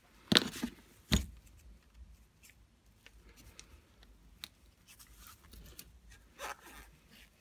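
Small screwdriver clicking and scraping against a shaft oil seal and its metal dust cover as the seal is worked into a cast housing. Two sharp clicks about half a second and a second in are the loudest, followed by faint ticking and scraping and a short scrape near the end.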